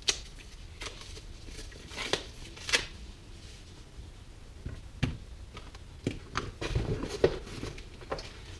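A small accessory case being opened and handled: scattered clicks and taps over soft rustling, with small metal tools inside knocking about.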